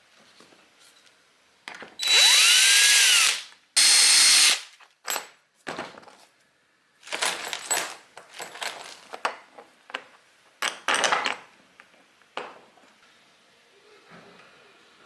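Power drill run in trigger bursts, drilling mounting holes through a storage case: two loud runs of about a second each, about two seconds in, with the motor pitch rising and falling, then several shorter, choppier bursts.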